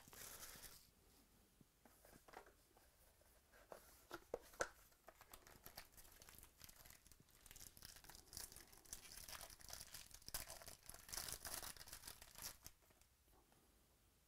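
Faint tearing and crinkling of plastic: shrink wrap pulled off a trading-card box and a card pack torn open. It runs as scattered crinkles at first, then a denser run of crackling from about eight to twelve seconds in.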